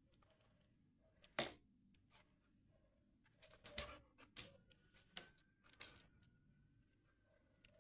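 Scattered sharp taps and clicks in a quiet room: one loud one, then a cluster of several about four seconds in. A faint steady high tone comes in about halfway.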